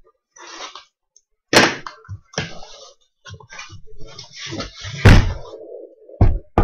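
Cardboard case being opened by hand and lifted off the stacked card boxes inside: cardboard scraping and rustling, with three sharp thuds, the loudest about five seconds in.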